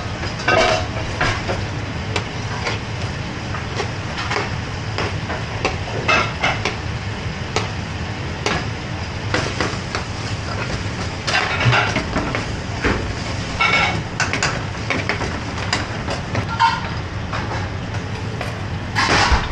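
Metal ladles and spoons clinking and scraping against aluminium curry pans and a stock pot on a gas range, in scattered knocks every second or two, over a steady kitchen roar.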